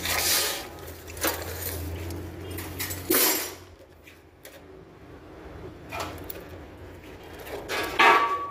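Knocks and clatter of metal parts being handled, over a steady low hum that stops about three seconds in; the sharpest knocks come just after the hum stops and again near the end.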